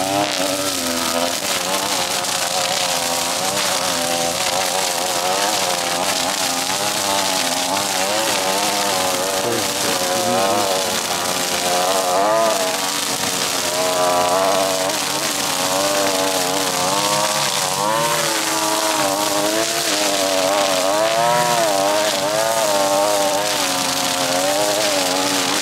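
String trimmer engine running hard while cutting tall grass. Its pitch keeps rising and falling as the line meets and clears the grass.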